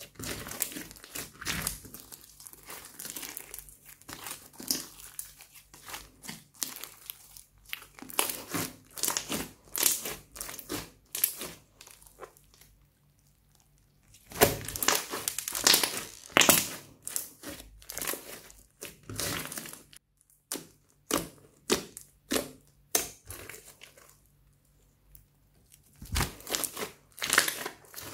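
Thick glossy slime being kneaded, pressed and stretched by hand, giving clusters of sticky clicks, crackles and pops as trapped air pockets burst. The handling stops twice for a second or two.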